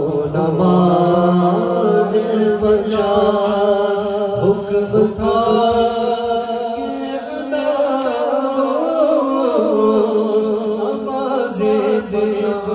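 A man's solo voice chanting an Urdu devotional naat into a handheld microphone, in long, ornamented, melismatic phrases without a break.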